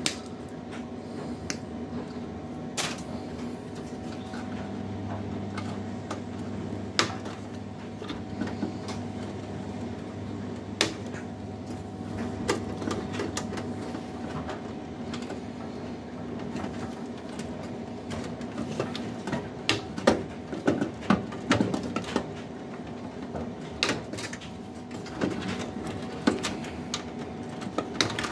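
Side cutters snipping through a desktop power supply's wire bundle, then scattered clicks, snaps and rattles of plastic connectors and wires being worked loose inside a metal PC case, coming thick and fast in the last several seconds. A steady low hum runs underneath.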